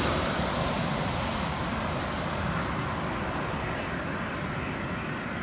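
Jet airliner's engines on final approach, heard from behind as it flies away: a steady engine noise fading throughout, its high hiss dying away first.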